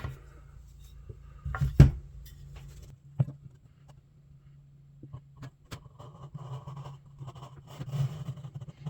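Wood being handled on a workbench: a couple of sharp knocks about two seconds in, then soft irregular scraping and rubbing that grows towards the end, over a low steady hum.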